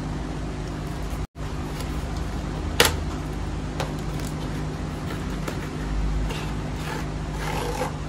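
Packaging handled: a cardboard box and the plastic tube case of a cricket bat grip, with a sharp click about three seconds in and scraping and rustling near the end, over a steady low hum.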